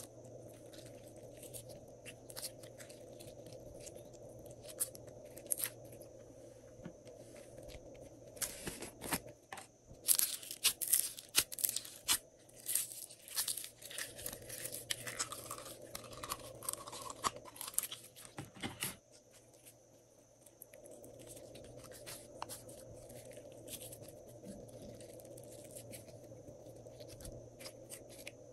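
Glossy slime being squeezed and handled by hand, making sticky clicks and crackling pops. These come thickest and loudest in the middle stretch, then die away to a faint steady room hum.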